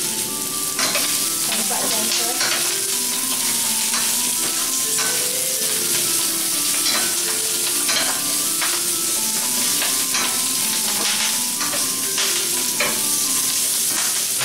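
Chinese broccoli and shiitake mushrooms sizzling in hot oil in a stainless steel pan while being stir-fried with a wooden spatula. The spatula scrapes and knocks against the pan at irregular moments every second or two.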